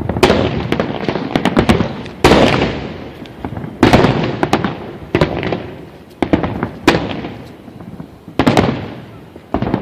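Aerial fireworks shells bursting, a sharp bang every second or two, each dying away in a trailing rumble, with smaller crackling pops between them.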